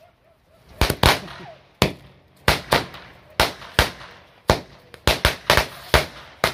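Firecracker on the ground going off in a series of about a dozen sharp bangs at uneven intervals, starting just under a second in, with sparks spraying up.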